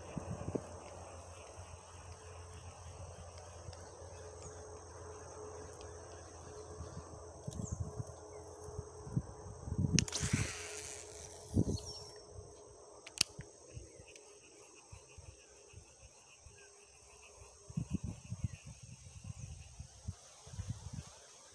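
Insects trilling steadily at a high pitch, with low bumps of wind and handling on the microphone and a brief rush of noise about halfway through.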